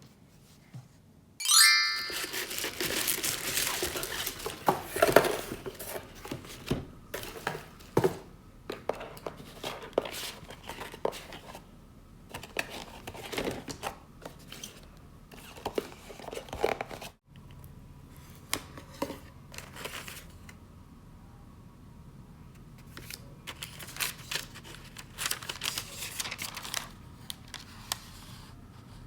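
Plastic wrapping and packaging of a new keyboard crinkling and tearing as it is unboxed, with a sharp rip a couple of seconds in and many small clicks and taps of handling. After a sudden break, quieter scattered clicks and taps follow.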